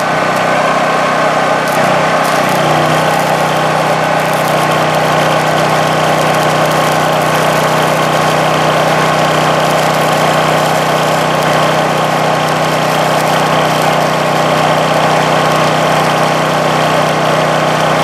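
Stick-welding arc crackling and sizzling steadily as a 3/32 rod is run along the steel drum of a concrete mixer, throwing sparks. Under it, the propane-fuelled portable generator powering the inverter welder runs with a steady hum that settles in about two and a half seconds in.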